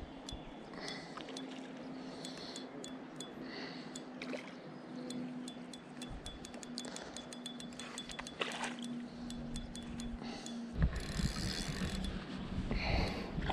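Fishing reel clicking rapidly and irregularly, with a steady low hum as line is wound in. About eleven seconds in the hum stops and wind rumbles on the microphone.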